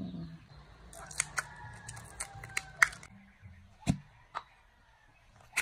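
A series of sharp clicks and taps, as of small objects being handled, with a quick cluster in the first half and a few single louder clicks later.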